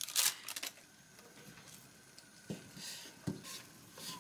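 A plastic wrapper crinkling briefly as it is peeled off an imitation crab stick, then a couple of soft knocks of a cleaver on a wooden cutting board.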